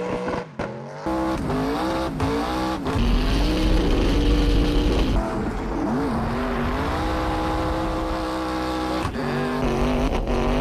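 Hoonicorn Ford Mustang race car's twin-turbo V8 running hard on a mountain hill climb. The revs climb in quick steps through upshifts, dip and rise again, hold steady for a few seconds, then change again near the end.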